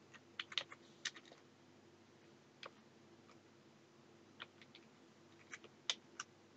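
Computer keyboard keystrokes, sparse and in small clusters, a few quick clicks at a time with pauses between, over a faint steady hum.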